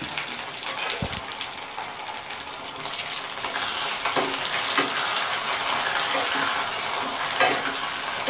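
Sliced onions, green chillies and curry leaves sizzling in hot oil in a metal kadhai, frying toward golden brown for a tadka. From about three seconds in a metal ladle stirs them, scraping against the pan, and the sizzling gets a little louder.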